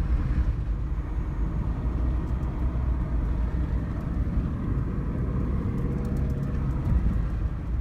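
Steady road noise of a car driving, heard from inside the cabin: a continuous low rumble of tyres and engine with a faint hiss above it.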